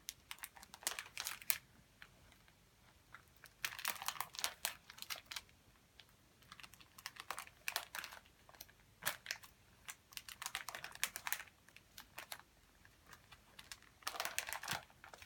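Plastic binder sleeve pages crinkling and clicking as they are handled and turned, in several bursts a few seconds apart.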